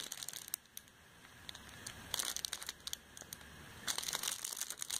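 Plastic packaging crinkling and rustling as cosmetics are handled, in three spells: at the start, around two seconds in, and again near the end.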